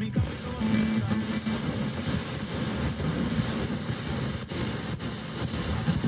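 Radio broadcast from a Toshiba SA-3500 vintage receiver playing through loudspeakers: a steady, dense, noisy sound with weak reception.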